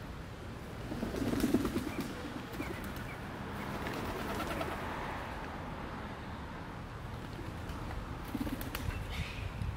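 A pigeon cooing: a low coo about a second in and a shorter one near the end, with a few faint small-bird chirps between.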